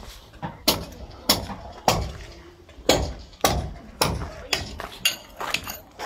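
Hammer striking stone blocks: a steady run of sharp, ringing knocks, about one every half to two-thirds of a second, with a slightly longer gap a couple of seconds in.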